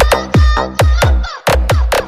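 Electronic dance music over a PA sound system: deep kick drums that drop in pitch, about two a second, with a synth melody above.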